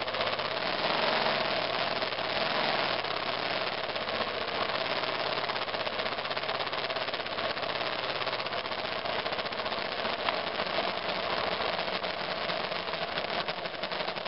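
A 2002 BMW F 650 GS Dakar's single-cylinder engine running steadily while the motorcycle is ridden, under a dense, even hiss of rushing air and road noise.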